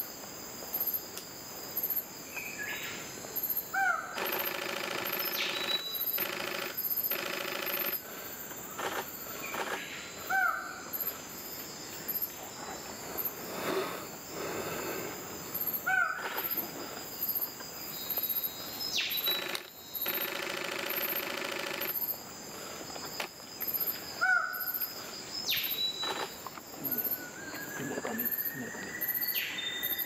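Male Twelve-wired Bird-of-Paradise giving its courtship call: short calls, each bending in pitch, repeated every few seconds. Two longer buzzy stretches of a few seconds each come between the calls, over a steady high insect drone.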